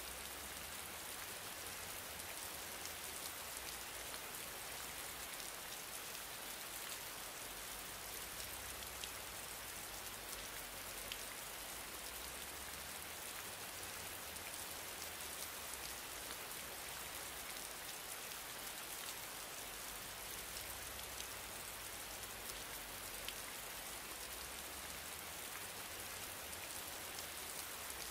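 Steady rain-like hiss with faint scattered ticks, unchanging throughout.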